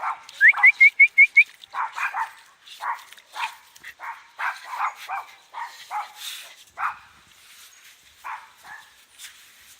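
Dog barking and yipping in short, high-pitched calls, over and over, with a fast run of six short rising yelps about half a second in; the barks thin out after about seven seconds.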